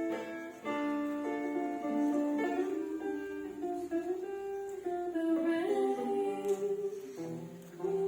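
Music: an acoustic guitar playing, with held, gliding sung notes over it.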